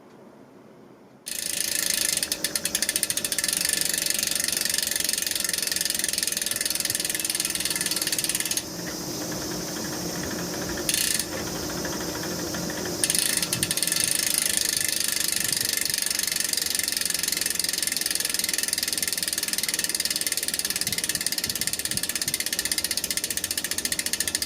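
Road bike drivetrain turning, with a rapid, steady ratchet-like clicking. It starts about a second in and eases for a few seconds in the middle.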